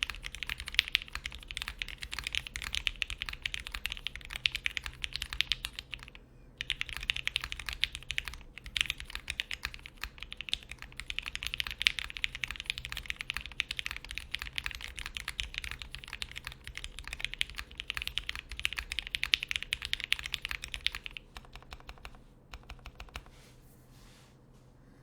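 Fast, continuous typing on a TGR x Singa Unikorn mechanical keyboard with lubed Gateron Red Ink linear switches on an FR4 half plate, under CRP R4 keycaps. There is a brief pause about six seconds in. Over the last few seconds the typing slows to a few scattered keystrokes.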